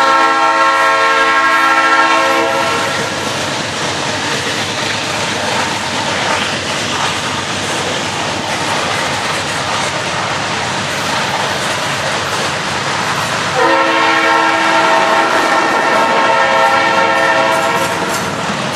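Loaded freight cars rolling past with a steady rumble and clickety-clack of wheels over the rail. A diesel locomotive horn sounds several notes at once: one blast of about three seconds at the start and a longer one of about five seconds beginning about 14 seconds in.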